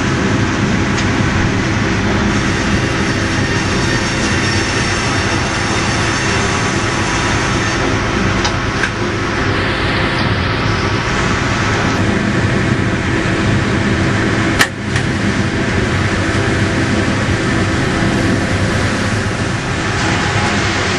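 Sawmill machinery running: a steady, loud mechanical din, with one sharp knock about fifteen seconds in.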